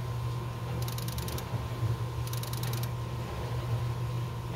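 Honeywell alarm control panel trying to dial out over a disconnected phone line: short runs of rapid ticking about every second and a half over a steady low hum and a faint steady tone.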